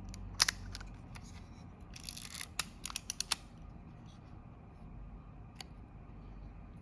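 Kodak Retina IB folding camera's leaf shutter being cocked and fired at 1/15 s, with small mechanical clicks and clatter: a sharp double click about half a second in, a quick cluster of clicks around two to three seconds in, and one more click near the end.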